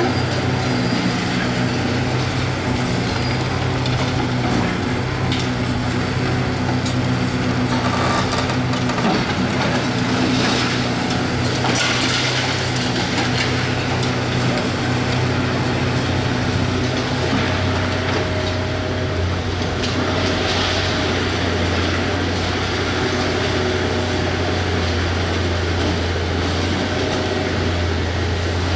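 Hitachi 670 LCH excavator's diesel engine running steadily under load, with several bursts of crunching and scraping noise from the demolition work, the strongest about a third of the way in and another a little past the middle.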